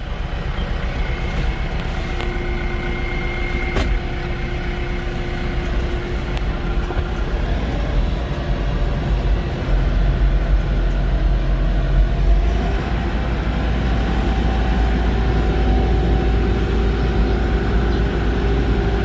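TYM 654 tractor's diesel engine running steadily under load while plowing snow, its note rising a little about two-thirds of the way in.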